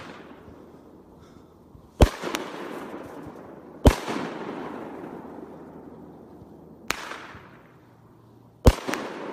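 Pyro Diablo 'Croc Bite' 200-gram 9-shot firework cake firing: four sharp booms as the shells break overhead, about two, four, seven and nine seconds in, the third one fainter, each trailing away after the bang.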